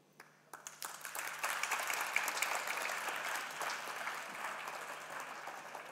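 Audience applauding. It starts about half a second in, swells within a second, then slowly tapers off.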